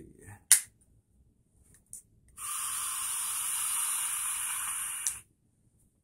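A long draw through a Mutation X V4 rebuildable dripping atomizer: a steady airy hiss lasting about three seconds as air is pulled over the firing coil and the freshly dripped e-liquid vaporizes. A sharp click about half a second in.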